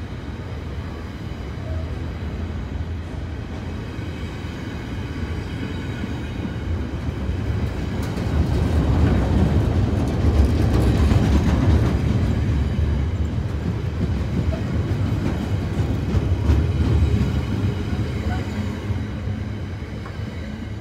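Railhead treatment train tank wagons rolling past at speed, a steady low rumble of steel wheels on the rails that swells through the middle. It fades as the last wagon passes near the end.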